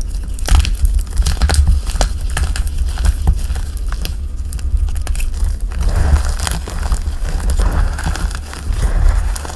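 Dyed gym chalk and cornstarch being crushed and crumbled close to the microphone, with dense crunching and crackling made of many sharp snaps. From about six seconds in, a grittier rubbing sound joins in.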